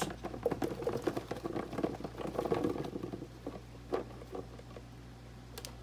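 Baby potatoes and onions tipped from a plastic tub, tumbling and knocking against one another and onto raw game hens in a cast iron Dutch oven: a run of quick pattering knocks for about three and a half seconds, then a few single clicks.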